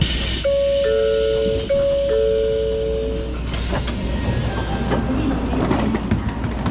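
Electronic chime inside the Shinkansen bullet train's door vestibule: two steady tones, one slightly lower than the other, overlapping and sounding twice. A hiss comes at the very start, a steady hum from the train car runs underneath, and scattered knocks and clunks follow near the door.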